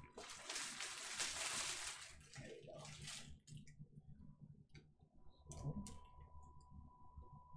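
Rustling of plastic packaging for about three seconds, then a few light clicks and taps.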